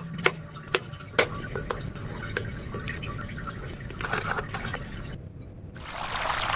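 Kitchen work sounds: a few sharp knife strokes on a cutting board in the first two seconds, then handling noises. About six seconds in, a loud rushing hiss of liquid begins.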